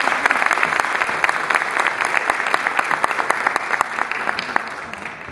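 Audience applauding, a dense clapping that thins out and fades near the end.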